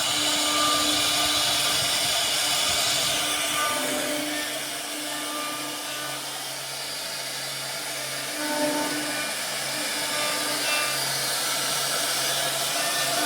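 CNC router carving wood: the spindle runs with a steady high hiss of cutting, over low motor tones that start, stop and change pitch every second or so as the machine's axes move. The sound eases a little in the middle.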